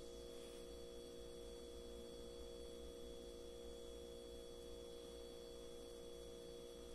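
Near silence: a faint, steady electrical hum of room tone.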